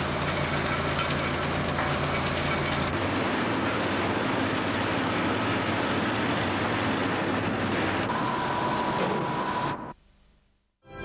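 Steady noise of salt purification plant equipment running, with a low hum in the first three seconds; it cuts off abruptly near the end.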